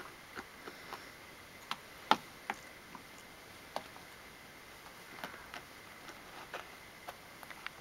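Scattered light clicks and taps as a puppy moves about in a wire crate, the sharpest about two seconds in, over a faint steady high-pitched hum.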